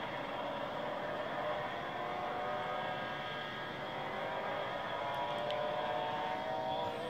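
Two drag racing cars, a dragster and a door car, running full throttle side by side down the strip, their engines making a loud, steady, many-toned sound that rises slightly near the end.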